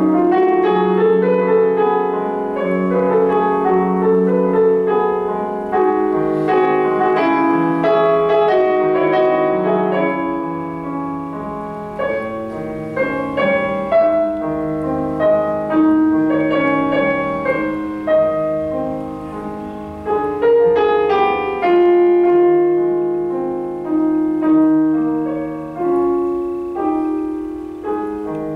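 Solo piano music played on a digital piano: melody over chords, each note struck and then fading.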